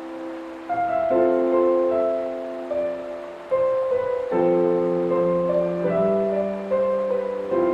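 Slow, gentle solo piano music, with soft chords struck every second or so and left to ring. A faint water sound runs underneath.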